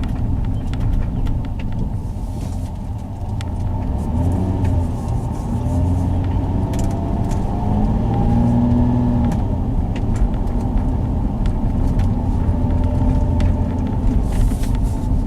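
Car driving, heard from inside the cabin: a steady low rumble of engine and tyres, with faint shifting tones and scattered small clicks and knocks.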